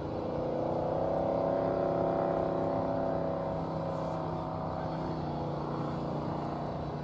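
A motor vehicle's engine running with a steady drone that swells about a second in and fades after about five seconds.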